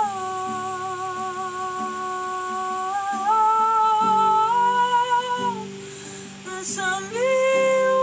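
A woman's voice humming wordless long held notes in light-language singing, each note held for a few seconds with a slight waver. The pitch steps up about three seconds in and again halfway through, breaks off briefly, then rises to a new held note near the end.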